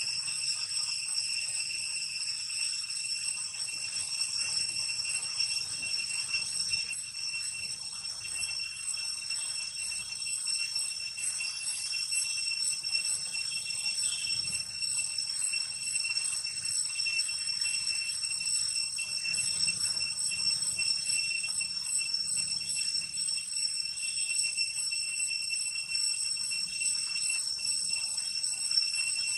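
A steady, high-pitched insect chorus: several piercing tones held without a break.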